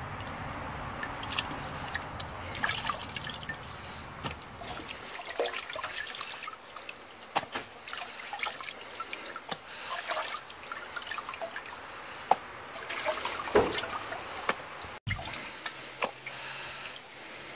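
Water sloshing and dripping as hands wash pieces of fish in a metal pot of water, with irregular small splashes.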